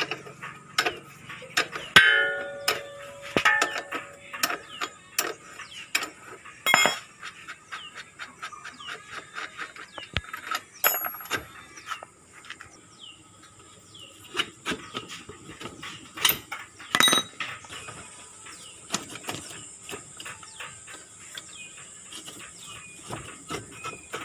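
Hand tools working on a motorcycle's rear wheel assembly, making irregular metallic clicks, clinks and knocks. A few of the strikes ring briefly.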